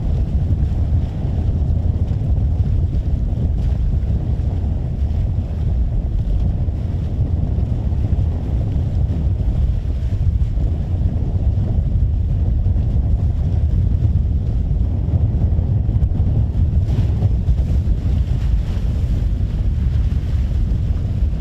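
Wind buffeting the microphone aboard a moving ferry: a steady low rumble with no breaks.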